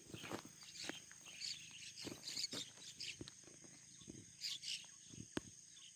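Faint outdoor ambience: a steady high-pitched insect drone with scattered chirps and light clicks, one sharper click about five seconds in.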